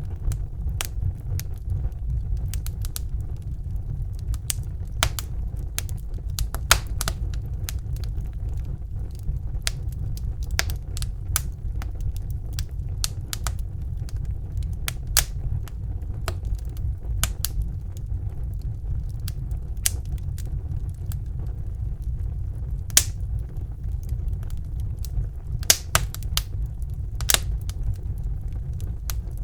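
Wood fire burning in a fireplace: a steady low rumble of the flames with irregular crackles and sharp pops from the burning logs, a few pops louder than the rest.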